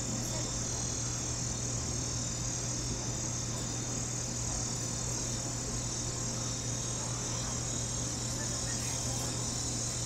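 Evening insect chorus, crickets, making a steady, unbroken high trill, with a low steady hum underneath.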